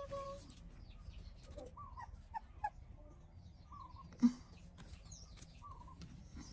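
Young puppy whimpering: a long falling whine that ends about half a second in, then short high squeaks. A sharp knock about four seconds in is the loudest sound.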